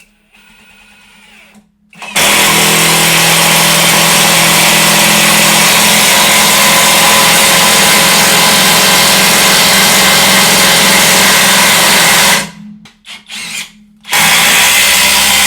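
Handheld electric power tool motor running flat out with a steady whine for about ten seconds, then two quick blips of the trigger, then running flat out again.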